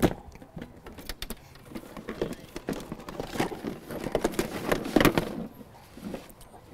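Handling noise: irregular clicks, knocks and rustling as an EV charging adapter cable and its connectors are pulled out of a scooter's storage compartment, close to a handheld microphone. A sharp knock comes at the start and a louder cluster about five seconds in.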